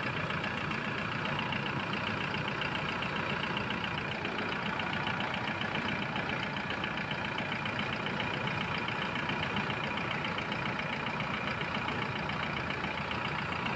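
Kia Bongo 3 common-rail diesel engine idling steadily, with a fast, even diesel clatter.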